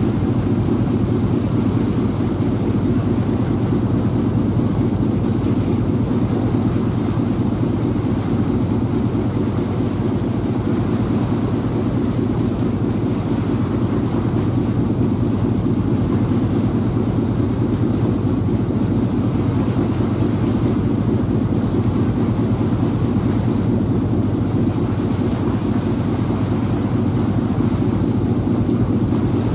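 Passenger ferry's engines running steadily under way: a constant low drone.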